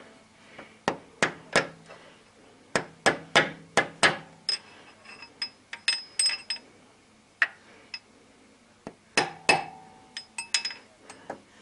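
Hammer tapping a socket extension used as a drift to drive a new crankshaft oil seal flush into a Honda D17A engine: about twenty sharp metallic taps in irregular clusters, some with a brief ring.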